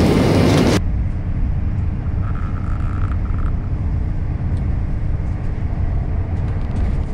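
Steady low rumble of a moving passenger train heard from inside the carriage, with a constant hum running under it. Less than a second in, it replaces a louder, noisier stretch of busy station sound that stops abruptly.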